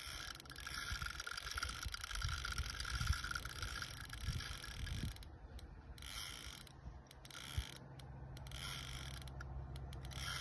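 Fixed-spool carp reel's drag clicking rapidly as a hooked carp pulls line off the spool, in spurts with short pauses.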